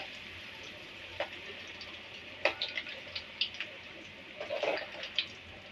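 Crumb-coated potato fingers deep-frying in hot oil in a kadai: a steady sizzling hiss with scattered sharp crackles and pops.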